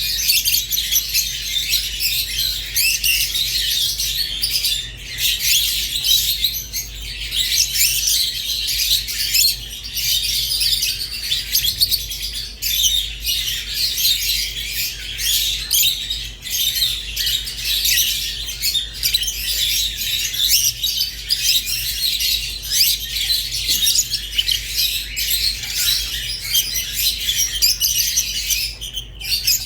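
Rosy-faced and Fischer's lovebirds chirping and chattering nonstop, a dense run of high, rapid tweets and squawks.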